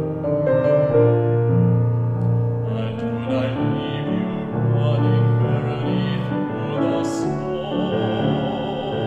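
Baritone singing a classical art song with piano accompaniment, the voice swelling into vibrato on held notes in the second half.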